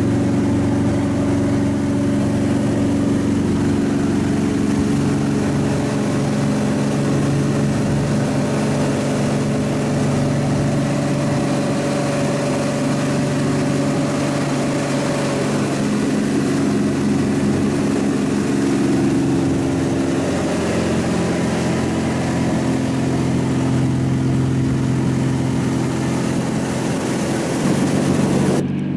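Motorboat engine running with a steady drone, its pitch shifting a few times. It stops abruptly at the very end.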